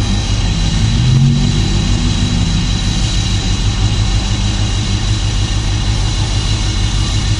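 Detroit Diesel Series 60 inline-six diesel in a tractor truck idling with a steady low rumble, over it a thin, steady high turbo whistle, which this engine gives at idle when the truck is in gear.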